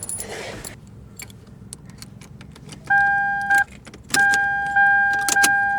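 Car keys jangling and clicking, then the car's electronic warning tone comes on about three seconds in, stops briefly, and comes back on a second later as a steady tone.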